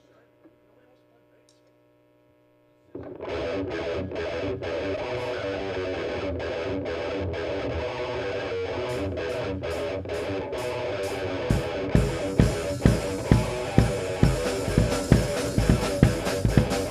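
Near silence, then about three seconds in a distorted electric guitar starts a choppy rock riff. Drums come in with a steady kick-drum beat and cymbals near the end.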